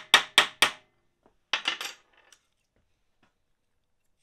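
Hammer tapping a brass drift against the seized piston of a clutch master cylinder, sharp metallic strikes about four a second, driving the stuck piston down into its bore to get it moving. The strikes stop under a second in, followed by a brief clatter of three quick metallic knocks.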